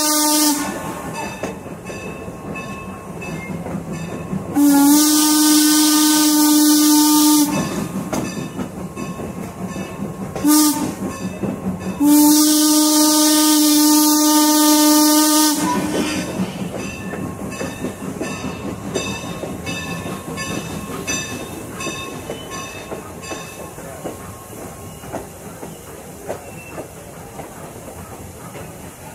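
Steam whistle of Norfolk & Western No. 475, a steam locomotive, blowing the grade-crossing signal with a rush of steam on each blast. One long blast ends just as the sound begins, then comes a long, a short and a long. After that, the train's wheels click steadily over the rail joints as it rolls on, fading toward the end.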